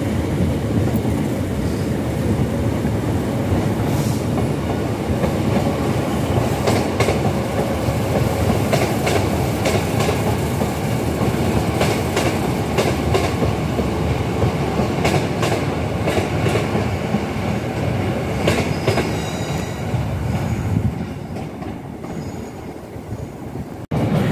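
Class 156 diesel multiple unit running steadily past, with a rumble and scattered sharp clicks from its wheels on the rail joints, easing off near the end as it moves away.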